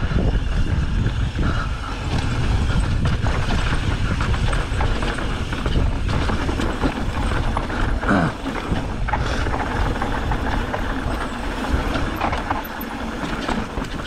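Mountain bike riding downhill over dirt and rock: wind buffeting the bike-mounted microphone over a steady rumble of tyres, with the frame and chain rattling and clicking over the bumps. A brief falling squeal cuts in about eight seconds in.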